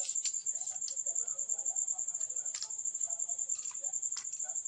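Light clicks and taps of a plastic-and-metal selfie-stick tripod being handled and its telescoping pole pulled, over a steady high-pitched pulsing trill.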